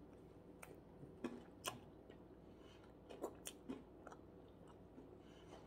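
Faint chewing of a bite of waffle: a few soft crunches and mouth clicks, scattered irregularly.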